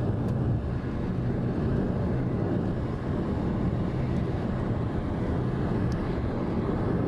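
Steady low rumble of road and wind noise from a car driving along.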